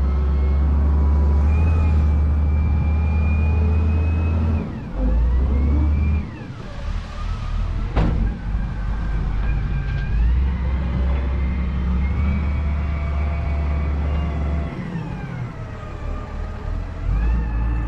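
Wheel loader's diesel engine working under load, its pitch and whine rising and falling as it revs while pushing into gravel and lifting the bucket. There is a single sharp clank about eight seconds in.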